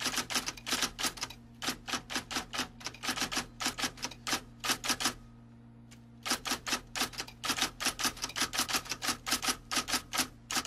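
Typewriter keys clacking in a fast run of keystrokes, about seven a second, over a faint low hum. The typing pauses for about a second midway, then runs on.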